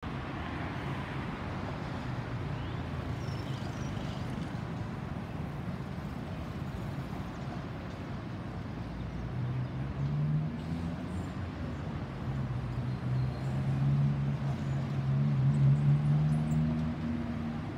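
Distant Boeing 737-800 jet with CFM56 engines passing overhead, a steady rushing roar. About halfway through a low droning hum rises out of it and grows louder, loudest near the end.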